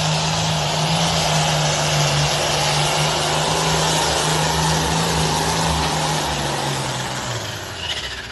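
International Harvester 1066 hot farm pulling tractor's diesel engine running loud and steady at high speed under a rushing exhaust noise. The sound fades away near the end.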